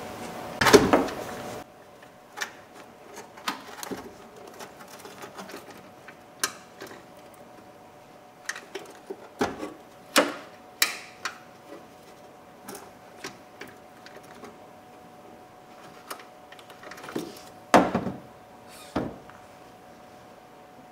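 Scattered knocks, clunks and scrapes as a car battery and its hold-down parts are handled and lifted out of the engine bay. The loudest knock comes about a second in, with others near the middle and near the end, over a faint steady hum.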